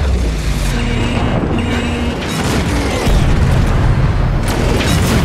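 Film sound effects of a spacecraft breaking up and falling through the atmosphere: a continuous deep rumble with booms and explosions, and several sharp hits about halfway through and near the end.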